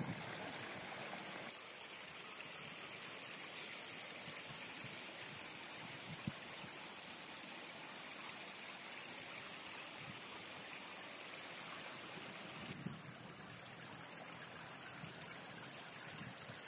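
Steady hiss of running, trickling water from a swimming pool.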